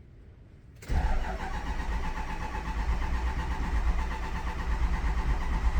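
Starter cranking a Ford 6.0L Power Stroke diesel. It kicks in suddenly about a second in and keeps turning it over steadily without it firing. The extended crank comes while the high-pressure oil system, just opened for repair, is still full of air and building injection control pressure.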